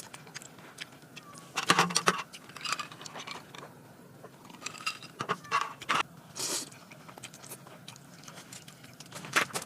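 Irregular light clicks, clinks and rustles of small objects being handled, in clusters, the loudest about two seconds in.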